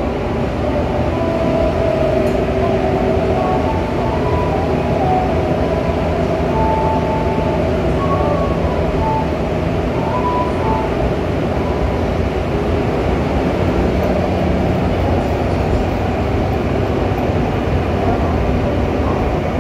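Seoul Metro Line 3 subway train with GEC chopper control, running on the line and heard from inside the passenger car: a steady rumble of wheels and running gear, with faint whining tones that shift in pitch during the first half.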